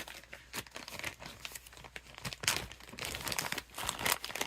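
Plastic packaging crinkling and rustling in irregular handling noises, with small clicks and taps, as parts are taken out of a box.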